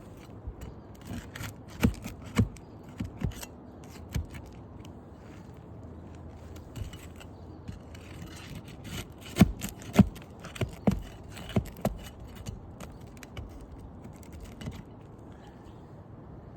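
Scraping on asphalt roof shingles with scattered sharp clicks and knocks as a damaged shingle is worked loose. There are a few knocks early, then a louder run of them in the middle.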